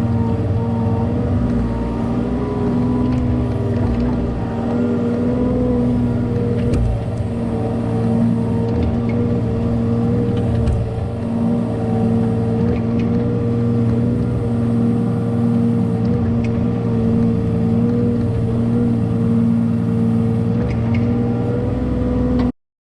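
Kubota KX018 mini excavator's three-cylinder diesel engine running steadily as the machine works, with a few faint clicks. The sound cuts off suddenly near the end.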